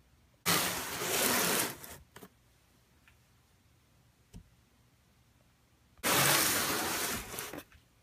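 Cardboard ceiling-fan box scraping across a workbench as it is turned, in two noisy scrapes of about a second and a half each, with a light knock between them.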